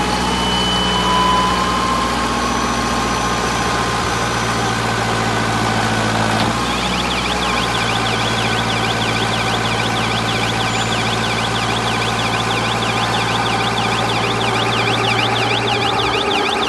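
Wheat-straw baler machine running with a steady mechanical hum. About six and a half seconds in, the running note shifts and a fast-warbling high whine sets in.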